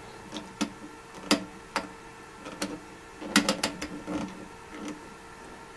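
Irregular clicks and knocks from turning the front-panel knobs and switches of a Bell & Howell solid-state oscilloscope, a quick run of them about three and a half seconds in, with a faint steady hum underneath.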